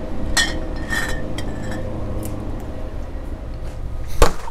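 Drink bottles and cans clinking and knocking as they are taken from a refrigerated drinks cooler, with a few clinks early and one louder knock near the end, over a steady low hum.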